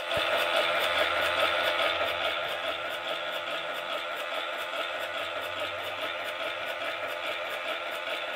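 Restored 1968 Mattel Major Matt Mason Firebolt Space Cannon running under battery power: its motor and built-in sound feature make a steady, loud mechanical noise as the radar dish spins. The noise is a little louder in the first two seconds, then holds steady.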